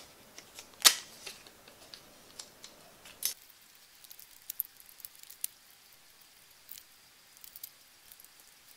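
Clear Scotch tape being pulled and torn off a small handheld dispenser and pressed onto a bicycle frame: faint scattered clicks and crackles, the sharpest about a second in and again around three seconds in.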